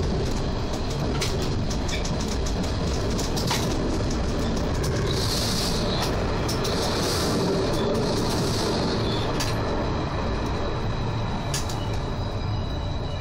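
Railcar running on the rails, heard from the driver's cab of an SWEG NE81 driving trailer: a steady rumble with scattered clicks over the track. There is a hissing for a few seconds midway, and a faint high squeal near the end.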